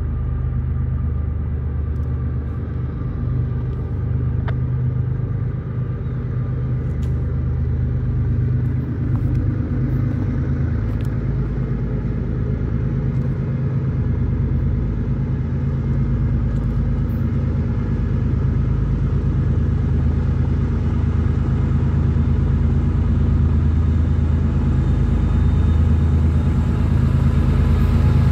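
Diesel locomotive engine running steadily, slowly growing louder.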